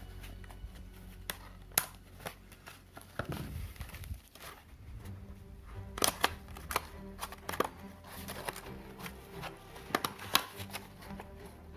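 Unboxing sounds: packaging being handled, with scattered sharp clicks and short rustles, over faint background music.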